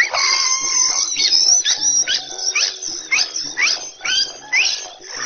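Monkey's 'laughing': a rapid string of shrill, rising squeals at about two a second.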